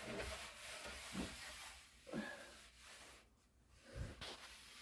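Faint rubbing as Danish oil is wiped onto a cherry board, with a few soft handling bumps after it.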